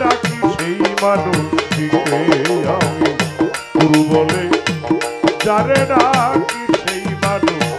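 Live Bengali baul folk music: fast hand-drum and rattling percussion strokes under a wavering melody line.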